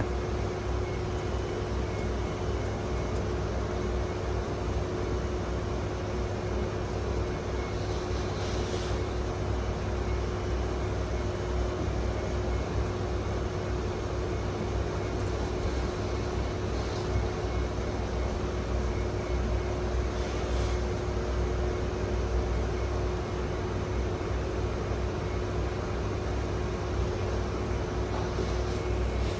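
Steady low mechanical rumble with a constant hum, and a few brief hisses about 9, 16 and 21 seconds in.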